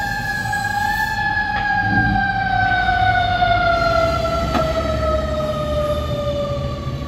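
Fire engine's siren in one long wail that falls slowly and steadily in pitch, the slow coast-down typical of a mechanical siren winding down, over the low running of the truck's engine as it pulls away.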